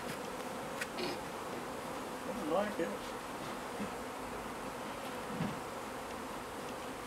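Honey bees humming steadily around an opened hive. A couple of light clicks about a second in.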